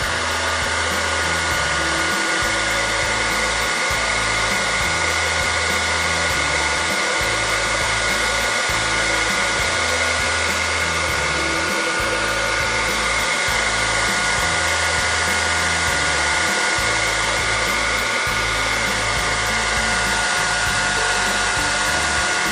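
A 2000 W hairdryer fitted with a diffuser, running steadily on full heat and low fan, with a steady high whine over its airflow noise. It is heating the screen adhesive to soften it.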